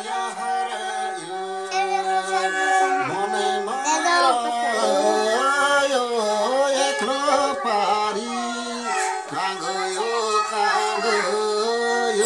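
Nepali sarangi, a bowed folk fiddle, playing a folk melody with sliding notes over a steady low note.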